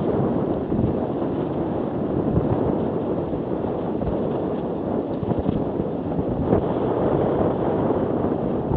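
Wind rushing and buffeting over a moving camera's microphone, a steady low rumble that drowns out other sounds.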